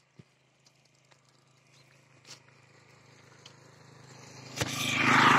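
A motor vehicle passing close by: a low engine hum that builds over the last few seconds to a loud peak near the end.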